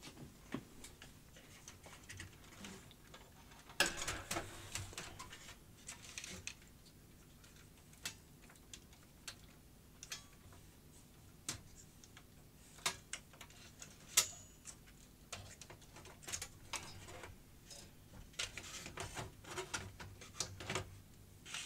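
Irregular clicks and light knocks of plastic and metal parts being handled inside a Philips DCC900 cassette deck as it is taken apart by hand. The clicks come in busier flurries at times, with one sharper click about two thirds of the way through.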